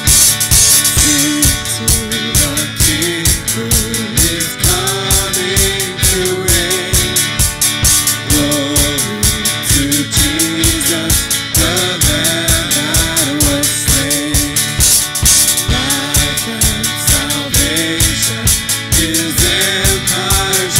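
Worship band playing an instrumental passage: a drum kit keeps a steady beat under a wandering melodic lead line.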